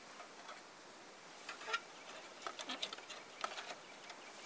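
Faint, scattered light clicks and taps of a titanium cook pot and lid being handled and set on a camp stove's stand over a lit alcohol burner.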